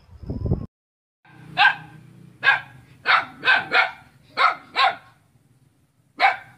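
A dog barking in sharp single barks, about eight in irregular runs, starting about a second and a half in. Before that, a short low noise cuts off suddenly, followed by a moment of silence.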